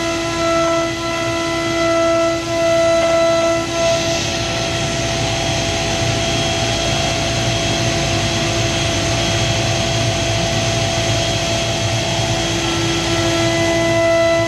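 OMNI 1530 ATC CNC router spindle milling aluminum with an end mill: a loud, steady whine of several tones over a cutting hiss and low rumble. About four seconds in, the clear tones fade into a rougher, noisier cut, and they return near the end.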